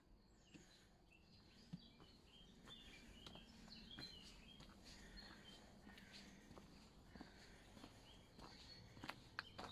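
Faint woodland birdsong, many short chirps and twitters, with footsteps crunching on a gravel path that grow more distinct near the end.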